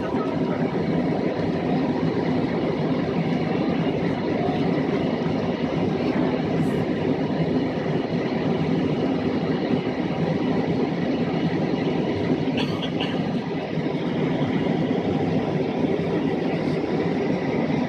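Steady drone of an airliner's engines and rushing air, heard from inside the passenger cabin at a window seat.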